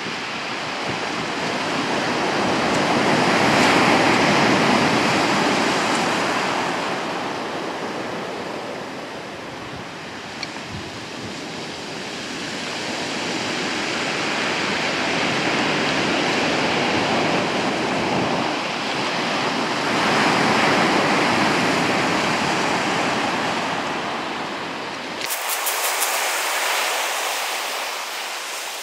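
Surf breaking on a shingle beach, a loud rushing hiss that swells and fades every several seconds. Near the end the sound changes to a run of sharp crackles from burning wooden kindling.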